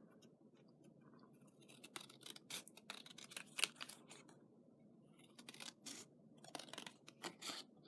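Scissors cutting card stock: a run of quiet, irregular snips starting about two seconds in.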